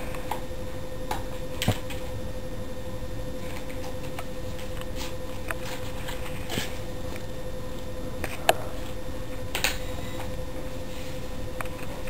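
A 5 gum pack being handled and opened: a few scattered sharp clicks and crinkles of the wrapper, the loudest in the second half, over a steady faint hum.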